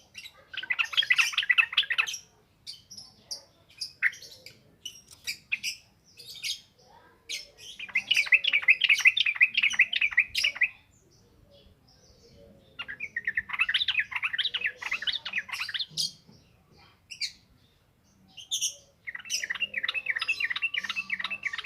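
Yellow-vented bulbul (trucukan) singing rapid, chattering runs of fast repeated notes, four long runs of a few seconds each, with short single chirps between them.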